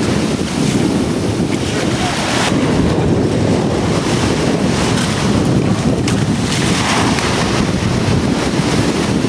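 Steady wind rumbling on the microphone, mixed with waves washing up in the shallow surf.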